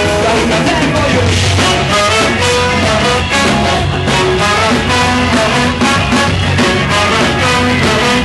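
Ska-punk band playing live and loud, with a steady drum beat under bass and guitar.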